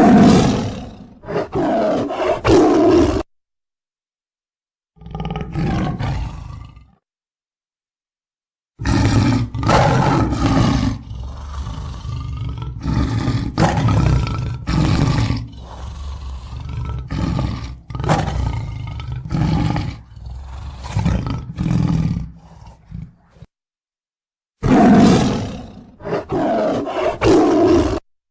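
Tiger growling and roaring: deep, rough calls in several bouts, each broken off abruptly by complete silence. There is a short bout at the start, another around five seconds in, a long run of repeated growls from about nine seconds, and a last bout near the end.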